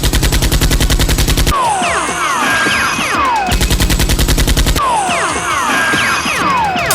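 Dubbed-in machine-gun fire sound effect: two rapid bursts of about ten shots a second, at the start and again about three and a half seconds in. Each burst is followed by a couple of seconds of overlapping falling whistles.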